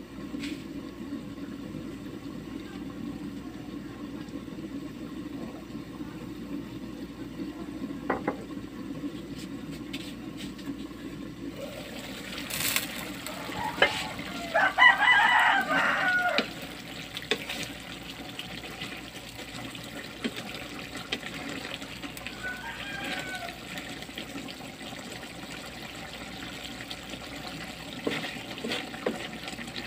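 A rooster crows loudly once about halfway through, and more faintly again later. Under it is the steady low hum and bubbling of a pan of pork adobo simmering on a portable gas stove, with a sharp clink shortly before the loud crow.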